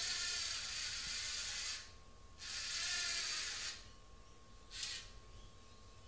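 Lego NXT robot's motors and plastic gears running in two bursts, the first about two seconds and the second just over a second, followed by a single short click about a second later.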